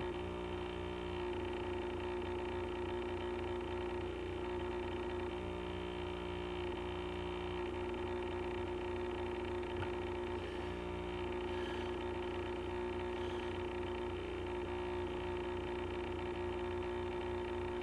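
Steady electrical hum with a few faint constant tones, unchanging throughout, with no handling clicks or knocks.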